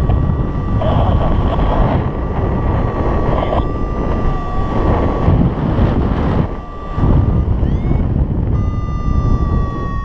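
Wind buffeting the microphone of a paraglider pilot's camera in flight, a steady low rush that dips briefly past the middle. A steady high electronic tone runs over it and breaks off for about a second near the end.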